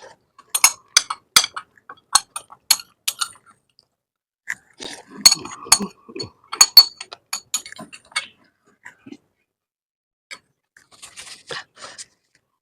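Eating utensil clinking against a bowl of noodles: a run of sharp, briefly ringing taps in the first few seconds, another cluster in the middle, and softer taps near the end.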